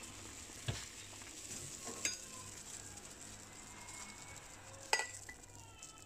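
A faint steady hiss from a pot of vegetable soup simmering on the stove, with three sharp clicks of metal kitchenware, the loudest about five seconds in, followed by a faint high tone near the end.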